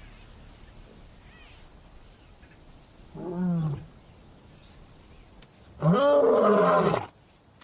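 Lion roaring: a short call about three seconds in, then a longer, louder one near the end, each rising and then falling in pitch.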